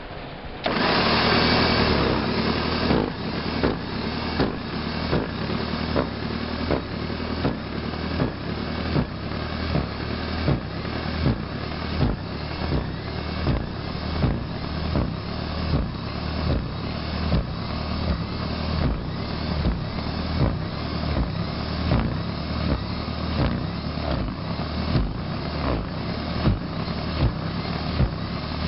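Toro Power Shovel's electric motor starting up loudly and running, its paddle rotor churning through snow with a regular pulsing beat.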